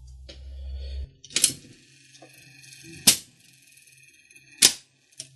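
Mechanical slot machine mechanism working: after a low rumble in the first second, three sharp metal clacks about a second and a half apart as its bars, slides and lock arm snap into place, each leaving a short ringing tone.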